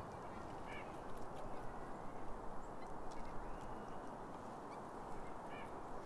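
Steady low rushing outdoor background noise, with two faint short high chirps, one about a second in and one near the end.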